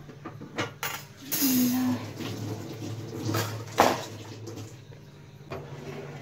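Metal pizza tins and an oven wire rack clattering and scraping on a stone countertop, with a sharp clank about four seconds in, over a steady low hum.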